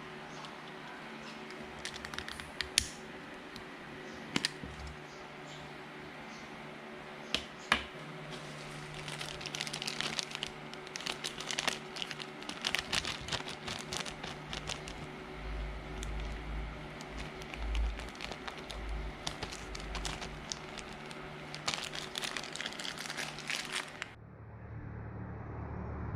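Crinkling and scattered small clicks of wrapping material being handled up close, growing denser and busier partway through. Near the end it cuts suddenly to a muffled, low, steady hum.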